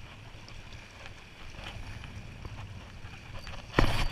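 Wind buffeting the microphone with choppy water at the shoreline, a steady low rumble and hiss. Just before the end, a short loud burst of handling noise.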